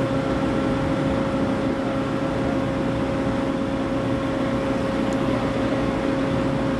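Heavy lifting machinery running steadily while a railcar hangs from the crane: an even drone with a constant hum.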